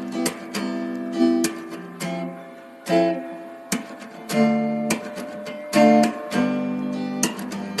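Background music played on acoustic guitar, strummed and plucked chords.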